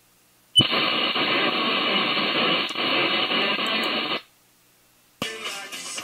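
Radio static from an FM receiver: a steady hiss that switches on sharply about half a second in, runs about three and a half seconds, and stops dead. After a second of silence, music comes back in.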